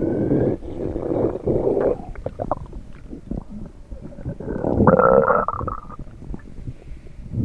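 Human stomach rumbling and gurgling in irregular bursts, with scattered small pops. About five seconds in comes a louder, higher-pitched gurgle with a wavering tone.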